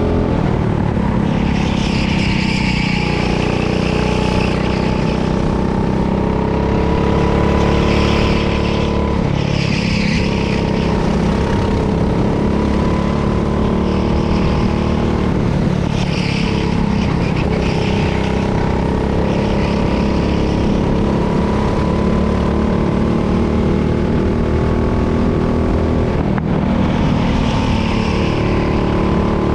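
Kart engine running hard on track, its pitch dipping and climbing again several times as it slows for corners and accelerates back out.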